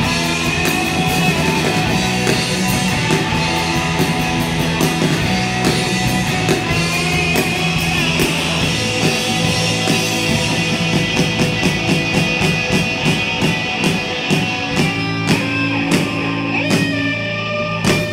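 Garage rock band playing live: electric guitars and bass guitar over a steady drumbeat on a drum kit.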